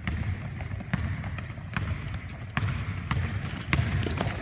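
Basketball being dribbled on a hardwood gym floor, a sharp bounce every second or so, with short high squeaks from sneakers.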